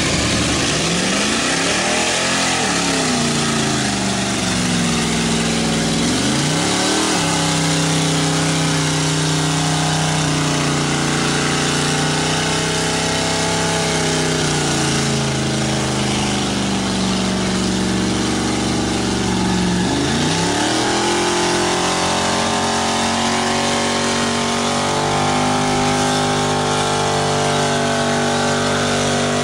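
Lifted square-body Chevrolet pickup's engine revving hard under load as the truck churns through deep mud. The revs drop and climb several times in the first seven seconds and again about twenty seconds in, then hold high near the end as the truck sinks toward its axles.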